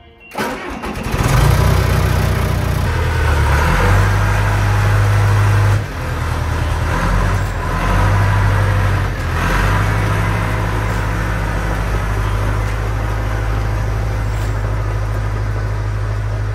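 Diesel engine of a John Deere 450G crawler dozer starting up within the first second or so, then running steadily, its level stepping up and down several times as it is throttled.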